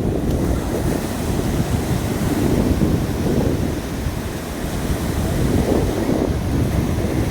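Sea surf washing onto the beach, swelling twice, with heavy wind rumble on the phone's microphone.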